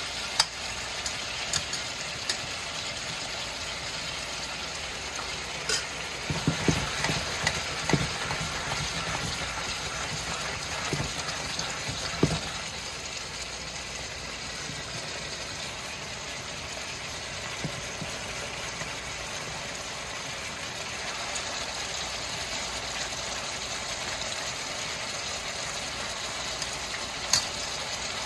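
Turkey neck pieces sizzling steadily as they sear in a large metal pot, with a metal spatula scraping and knocking against the pot as the meat is turned, busiest about a quarter of the way in.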